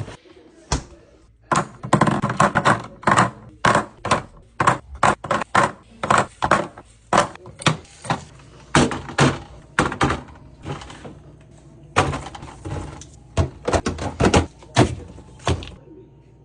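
Groceries and containers being set down and arranged on fridge shelves: a quick series of clunks and taps, about three a second, pausing briefly now and then.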